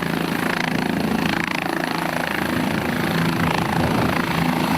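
Helicopter running steadily, its rotor and turbine engine making a continuous, even sound.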